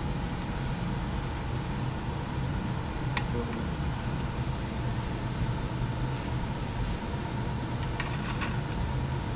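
Steady mechanical hum of room background noise, like a fan or air conditioning. A few sharp little clicks sound over it: one about three seconds in and two close together near the end, from hands working on the bike's chain tensioners at the rear axle.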